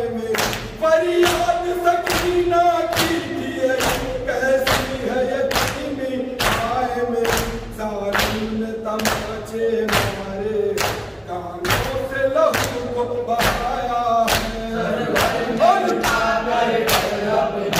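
Matam: a group of men beating their chests with open hands in unison, a steady rhythm of sharp slaps a little under two a second. Over the slaps, a nauha lament is sung by a lead voice and the group.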